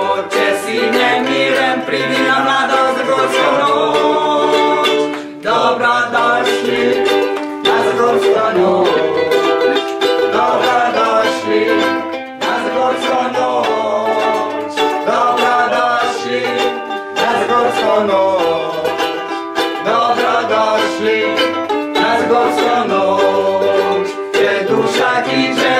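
A song played on a strummed ukulele, with voices singing along.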